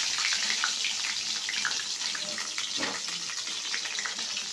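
Brinjal (eggplant) slices sizzling as they fry in very hot oil: a steady hiss with scattered small crackles.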